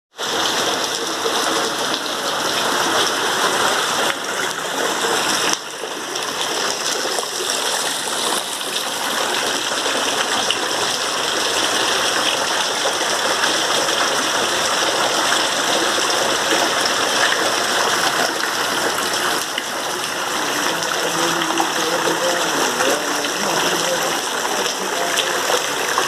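Heavy monsoon rain with gushing, running water: a loud, steady rush.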